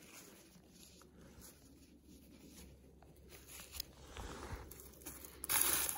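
Faint, soft rustling and tearing as fingers pull the fluffy seed down from a cattail head, with a louder rustle near the end.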